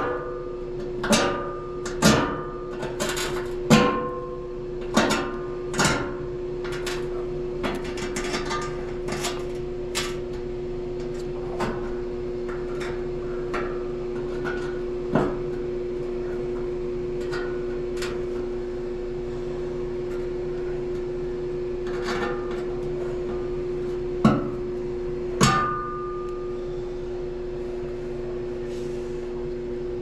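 Irregular metal clinks and knocks of hand tools on furnace parts, about a dozen in the first ten seconds and a few scattered after, two sharp ones near twenty-five seconds in, some with a brief ring. A steady hum runs underneath.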